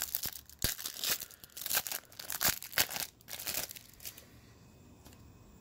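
See-through plastic wrapper of a trading card pack being torn open and crinkled by hand: a quick run of crackles and tears for the first three and a half seconds or so, then it goes quiet.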